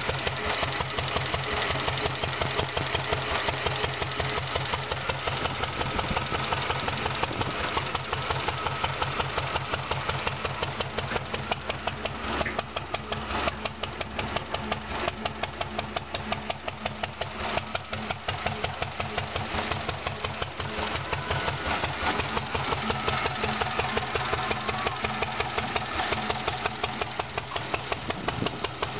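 Lister D single-cylinder side-valve engine of a 1956 Parker concrete mixer running steadily, with a rapid, even firing beat.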